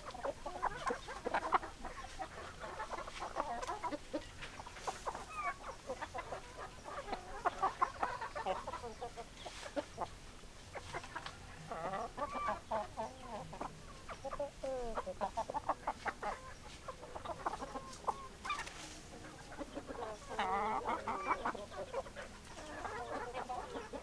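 A flock of hens clucking, many short calls overlapping one another without a break.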